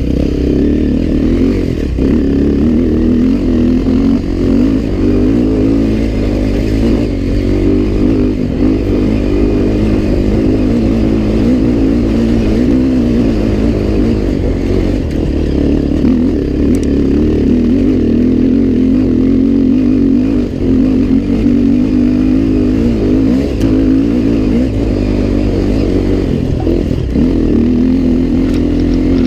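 Dirt bike engine running steadily under load as the bike rides a trail, its pitch wavering slightly with the throttle and easing off briefly about two-thirds of the way through.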